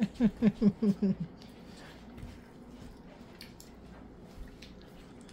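A person laughing, a quick run of about six short ha's that stops after a little over a second. Then it is quiet apart from a few faint, small wet clicks as orange segments are handled.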